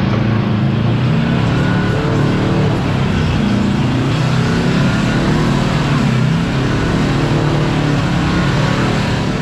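Kawasaki Teryx KRX4 1000 side-by-side's parallel-twin engine running as it drives a trail, its pitch rising and falling with the throttle.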